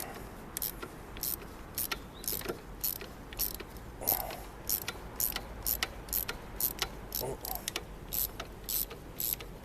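Ratchet wrench clicking in a steady rhythm, about three clicks a second, as it is worked back and forth to loosen the alternator bolt on a Kawasaki ZRX1200R.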